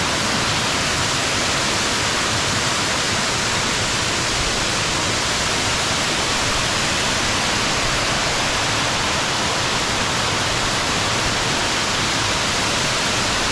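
A large waterfall: the steady, unbroken rush of falling water.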